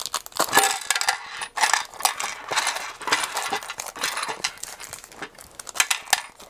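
Small M4×8 metal screws clinking and rattling, handled out of plastic parts bags and dropped into a plastic tray, in quick irregular clicks with some bag rustling.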